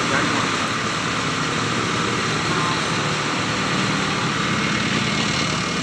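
Fire truck engine running steadily.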